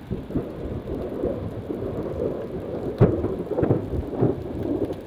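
Thunder rumbling through steady rain, with a sharper crack about three seconds in and further rolls after it.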